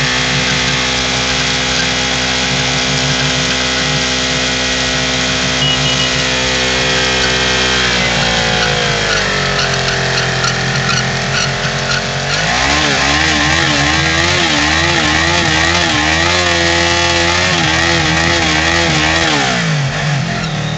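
Yamaha VMAX's V4 engine held at high revs during a burnout, the rear tyre spinning in place. The revs hold steady, sag for a few seconds about eight seconds in, then climb sharply and waver up and down before dropping near the end.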